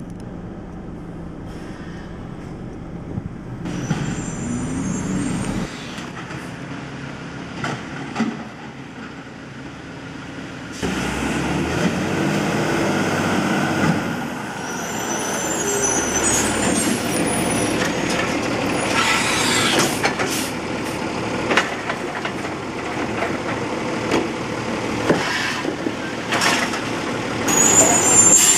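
Automated side-loader garbage trucks working: diesel engines running while the hydraulic side arm lifts and empties a cart. Short high hisses come a few seconds in and again near the end.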